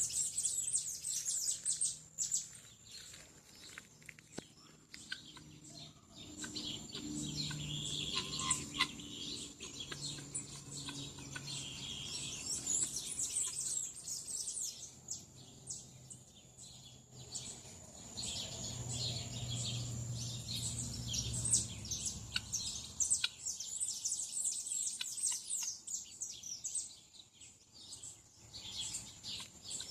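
Many small birds chirping and calling at once, quick high twitters that thin out and return, over a thin steady high whine. A faint low drone runs under them for a stretch in the middle.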